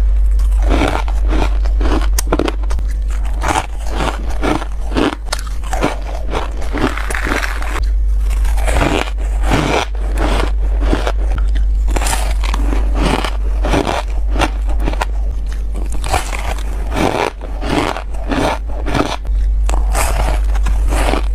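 Squeaky ice being bitten and chewed: a run of irregular crisp crunches, one after another, over a steady low hum.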